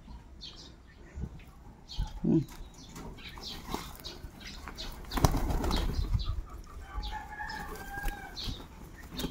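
Domestic pigeons flapping their wings in repeated flurries as they crowd in to feed, the loudest flurry a little past halfway.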